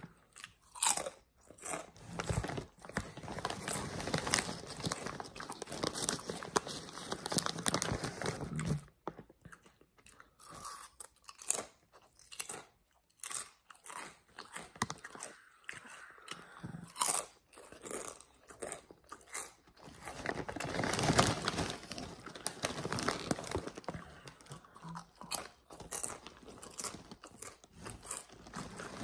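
A person biting into and chewing thick, hard kettle-cooked potato chips with crisp crunches. The crunching comes in bouts, with a quieter stretch in the middle.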